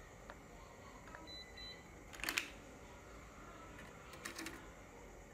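A UNI-T digital multimeter being set down and handled on a rubber bench mat: a quick clatter of knocks about two seconds in, then a few lighter clicks a couple of seconds later, with faint short electronic beeps before them.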